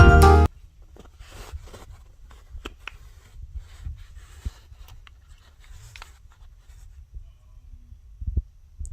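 Background music that cuts off suddenly about half a second in, followed by faint rustling and small clicks of hands handling the earbuds and their packaging.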